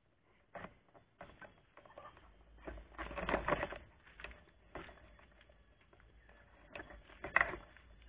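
Irregular clicks, taps and rustling from a handheld camera carried by someone on the move. A denser, louder rustle comes about three seconds in, and a sharp knock near the end.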